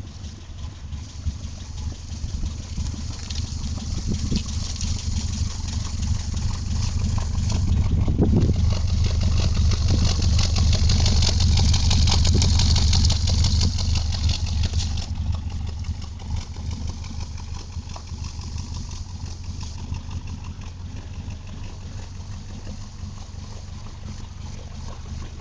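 Suzuki Carry Futura engine running, rising to its loudest from about 8 to 15 seconds in, then easing back to a steadier run.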